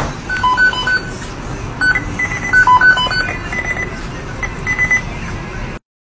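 Background music: a tune of short, high plinking notes over a low steady layer, cutting off abruptly near the end.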